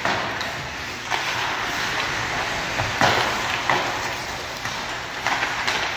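Live ice hockey play: a steady hiss of skates scraping the ice, broken by several sharp knocks of sticks, puck and bodies against the boards, the loudest about halfway through.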